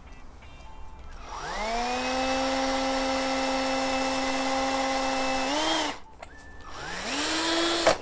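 Power drill drilling out the crimped steel washer that rivets the lever plate of a car door lock mechanism. It winds up to a steady whine and runs for about four and a half seconds, then stops; a second, shorter run starts about a second later, rising to a higher pitch.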